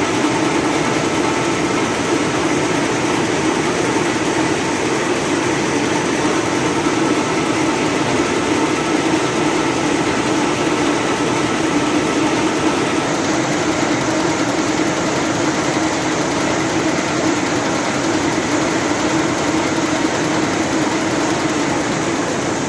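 High-speed double-deck paper napkin making machine with a printing unit running steadily in production: a loud, continuous, dense mechanical noise.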